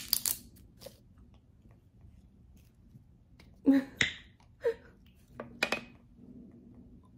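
Sharp clicks and rustles of a plastic drink bottle being handled, with a short soft laugh a little past halfway through.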